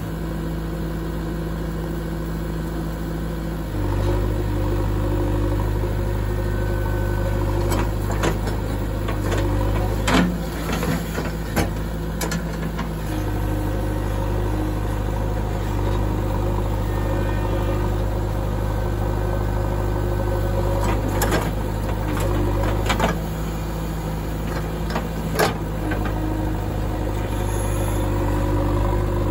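JCB 3DX backhoe loader's diesel engine running steadily while the backhoe arm digs. Its tone switches between two pitches every few seconds, and a few short, sharp knocks of the bucket and arm come through now and then.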